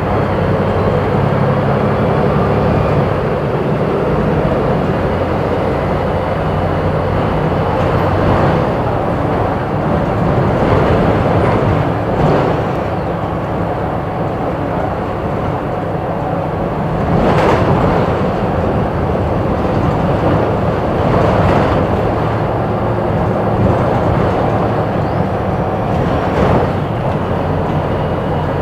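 Volvo B290R city bus with a Voith automatic gearbox under way: a steady diesel engine drone over road rumble, with a handful of short knocks and rattles spread through.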